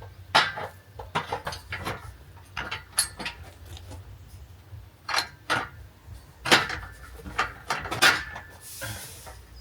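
Metal poles being handled and fitted: irregular sharp clanks and knocks, over a dozen, some with a short metallic ring. A brief hiss comes near the end.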